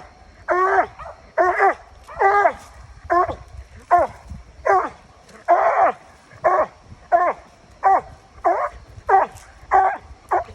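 Coon dog barking treed: a steady run of about fourteen loud barks, roughly one every 0.7 seconds, each dropping in pitch, as it holds a raccoon up a tree.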